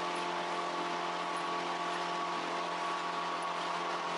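Small fishing boat's engine running steadily at cruising speed, a constant droning hum, over a rush of wind and water as the hull runs through choppy water.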